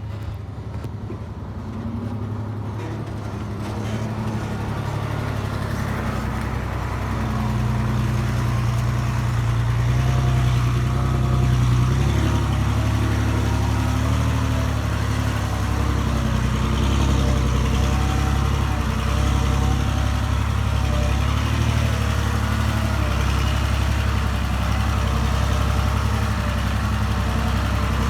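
Engine of a small earthmoving machine running, growing louder over the first several seconds and then holding steady, with small rises and falls in pitch.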